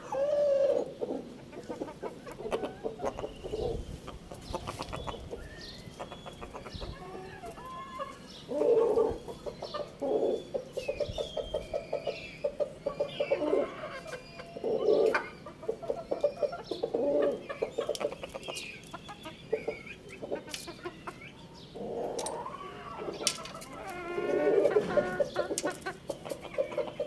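Chickens clucking and calling in many short bursts, with a rooster crowing among them in a few longer drawn-out calls.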